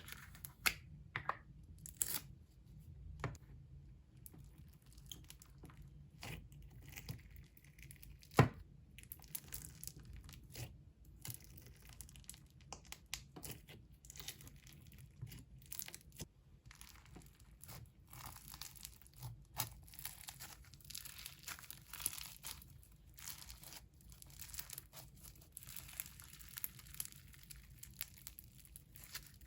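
Black bingsu slime being squished and stretched by hand, its bingsu beads crackling and crunching in many small, irregular pops, with one sharper click about eight seconds in.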